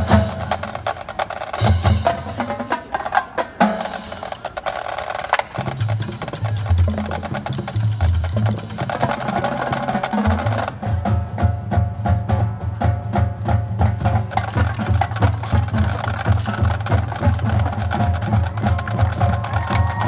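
High school marching band playing, its percussion section prominent with a driving rhythm of drum and woodblock-like strikes. About halfway through, a fast, even drum pattern takes over under sustained held notes.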